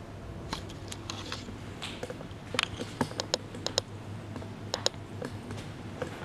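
Footsteps crunching over grit and debris on a concrete floor: irregular sharp clicks and scrapes, with a few short ringing clinks among them.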